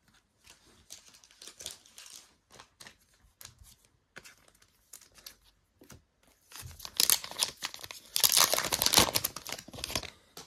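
Foil trading-card booster pack being torn open and crinkled. At first there is soft rustling of wrappers and cards, then a loud stretch of tearing and crinkling foil in the last few seconds.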